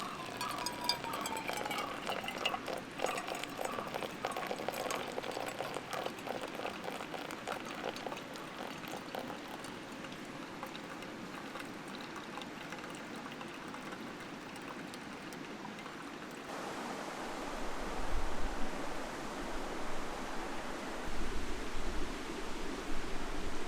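Liquid being poured and trickling, with many small clicks and splashes. About two-thirds of the way through, the sound changes abruptly to a mountain stream's steady rushing, with gusts of wind buffeting the microphone.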